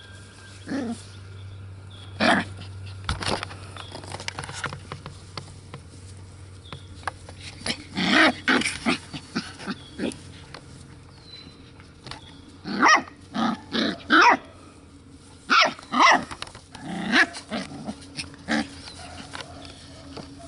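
Six-week-old Pumi puppies barking and growling in play, in scattered short bursts, the loudest clustered in the second half.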